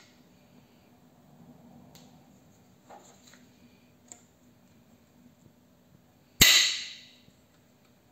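Hammer of an antique Lancaster 16-bore hammer shotgun snapping down in a dry fire: one loud, sharp metallic snap about six seconds in that rings away over about a second. A couple of faint clicks come before it.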